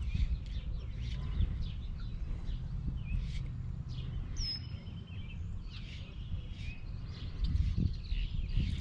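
Songbirds chirping and calling on and off, with a couple of clear falling whistles, over a steady low rumble from the open-air microphone.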